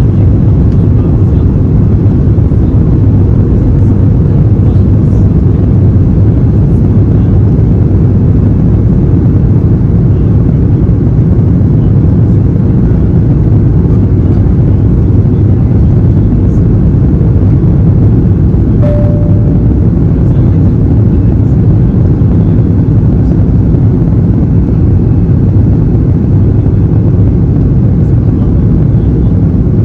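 Cabin noise aboard an Airbus A330-200: loud, steady low rumble of its Rolls-Royce Trent 700 engines and the airflow, with one brief beep about two-thirds of the way through.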